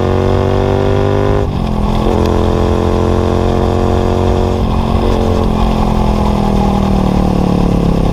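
Honda VTR250's V-twin engine running under way through an LCI short stainless muffler with the baffle removed, heard close to the muffler. There is a short break in the note about a second and a half in as a gear is changed, then a steady pull, and the pitch eases down slowly near the end.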